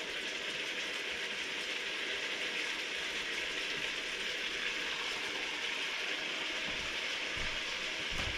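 Food sizzling in a hot pot on the stove, a steady, even hiss.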